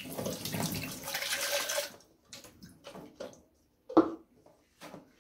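Tap water running into a stainless steel kitchen sink while a plastic measuring jug is rinsed. The water cuts off about two seconds in. A few scattered knocks and clatters follow, with one sharp knock about four seconds in.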